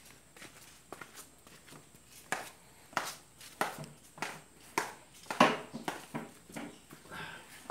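Footsteps going down tiled steps, a step about every half second, starting about two seconds in and loudest around five and a half seconds.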